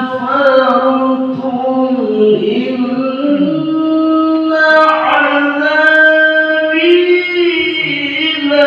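A man's solo melodic Qur'an recitation (tilawah), sung into a microphone. He holds long, ornamented notes that slide and step between pitches, dipping lower about two seconds in and climbing again.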